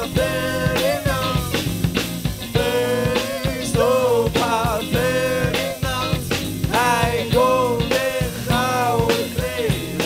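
Live rock band with a ska feel playing an instrumental break: a pitched lead melody over a steady drum beat and bass line.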